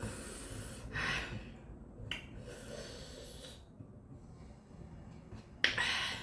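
A woman's sharp, hissing breaths in and out through the mouth, from the heat of spicy food she is eating; several short breaths, the loudest one sudden and near the end.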